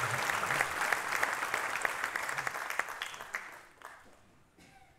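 Audience applauding, the clapping fading out and stopping about four seconds in.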